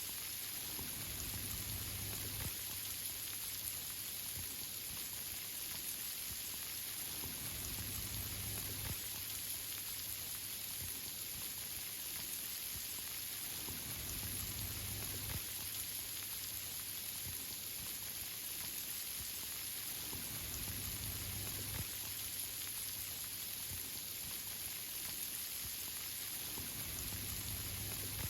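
Steady rain falling on tree leaves: a dense, even patter of drops, with a faint low rumble swelling every six seconds or so.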